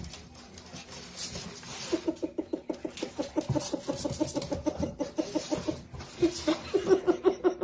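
A cat chattering: a rapid run of short, pitched chirps, about eight a second, starting about two seconds in. A louder run of the same chirps comes near the end.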